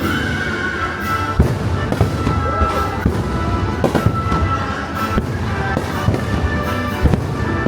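Fireworks bursting in a string of sharp bangs over the music of a fireworks show, with two especially loud bursts, one about a second and a half in and one near the end.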